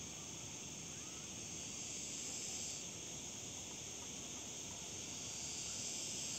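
Steady high-pitched insect chorus from the forest trees and scrub, continuous, with a lower part of the buzz dropping out a little under halfway in, over a low, even rumble.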